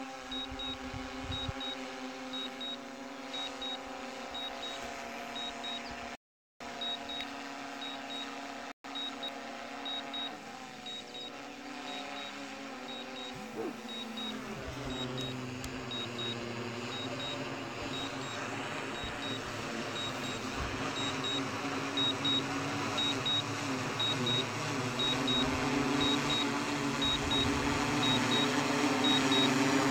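DJI quadcopter's propellers humming steadily as it flies back to its home point and descends to land, growing louder toward the end, with a pitch shift a little before halfway. A high double beep repeats about once a second throughout.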